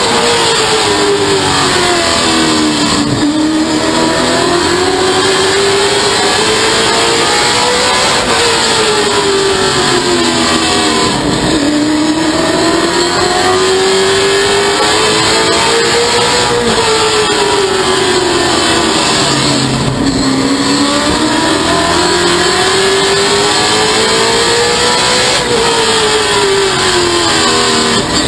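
Stock car engine heard from inside the cockpit at racing speed, its pitch climbing along each straightaway and dropping sharply as the throttle comes off into each turn, about every eight to nine seconds, over steady road and wind noise.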